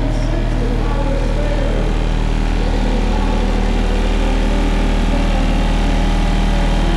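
Steady low bass drone with a buzzy overtone stack from a competition vehicle's car audio subwoofer system, heard from outside the vehicle during a timed run.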